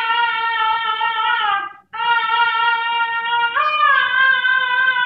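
A woman singing a Peking opera aria in a high voice. She holds long notes that slide down at the end of each phrase, with a brief breath break about two seconds in, and rises to a higher note about three and a half seconds in.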